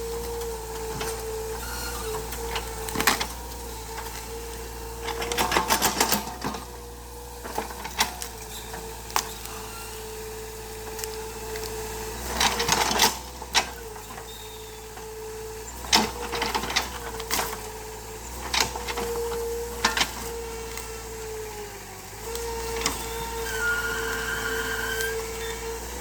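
Excavator running steadily with a whine that breaks off and comes back several times, over repeated sharp cracks and snaps of wood as tree roots and stumps are torn out.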